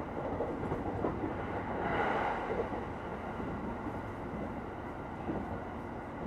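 Interior of a Japanese commuter train standing at a station with its doors open: a steady hum of the carriage's equipment and the platform's ambience, with a brief louder swell about two seconds in.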